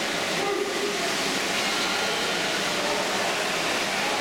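Swimmers splashing through a breaststroke race, heard as a steady, even wash of noise echoing around an indoor pool hall.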